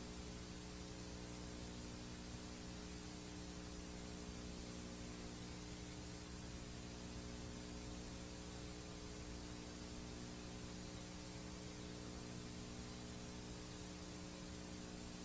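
VHS tape playback noise from a blank stretch of tape: a steady hiss with a low hum under it, unchanging throughout.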